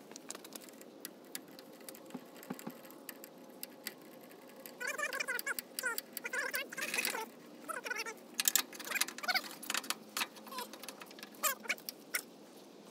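Scattered light clicks and knocks of hand work at a truck's rear axle and coil spring as the axle is jacked down from the frame. About five seconds in, a run of short, wavering high chirps joins them.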